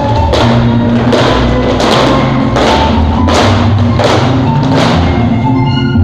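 Dance music with steady low bass notes and loud, ringing percussion hits about every three-quarters of a second.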